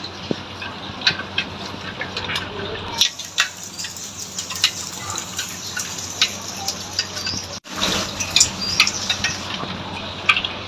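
Muddy floodwater rushing along a lane: a steady wash of water noise with frequent small splashes and crackles. The sound drops out for an instant about seven and a half seconds in.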